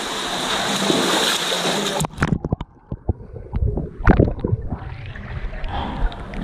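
Pool water splashing and churning close by as a Labrador swims past. About two seconds in the loud hiss of splashing cuts off, giving way to muffled sloshing, gurgles and thuds as waves wash over the camera at the waterline, with a burst of splashes about four seconds in.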